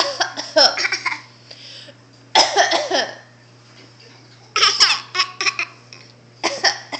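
A young child coughing in four short bouts, about two seconds apart, with laughter mixed in.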